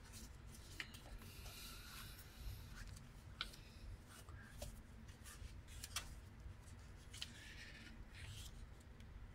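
Pages of a paperback textbook being turned by hand, with faint paper rustling and a few soft flaps and clicks as each leaf goes over.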